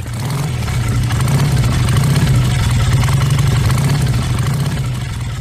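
An engine running steadily at idle, swelling in over the first second and fading out near the end.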